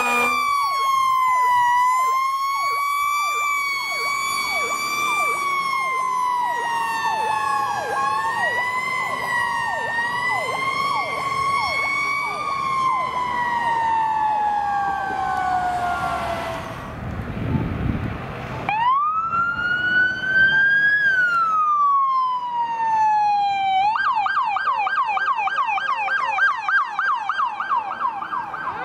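Emergency vehicle sirens on responding fire apparatus. For the first half, a slow wail rises and falls while a second siren adds rapid, repeated falling chirps. After a brief low rumble, a single wail rises and falls, then switches to a fast yelp for the last few seconds, and a new wail starts rising right at the end.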